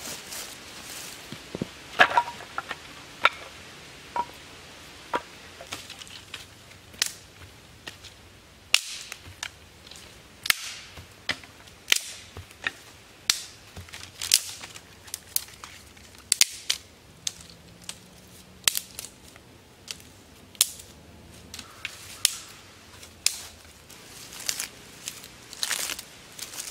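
Dry dead sticks snapped by hand for firewood: a long, irregular string of sharp cracks, about one every second, some of them loud.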